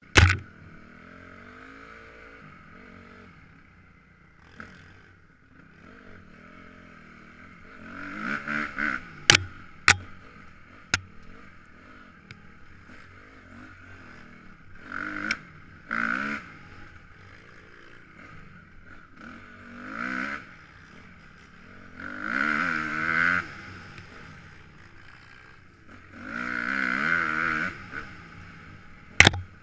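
Honda CRF250R dirt bike's single-cylinder four-stroke engine, heard from a helmet camera, running low between a series of rev bursts as it rides a woods trail. A few sharp knocks stand out, the loudest just after the start and near the end.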